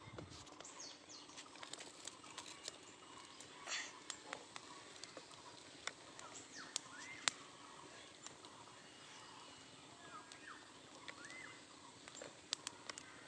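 Cooking fire under charring eggplants giving scattered sharp crackles, with a few faint short bird chirps in the background.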